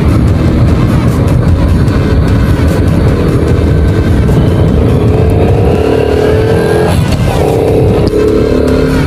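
Honda Wave 110i's single-cylinder four-stroke engine running under way, with loud intake noise from its air filter. The engine note climbs steadily, drops away briefly about seven seconds in, then picks up again.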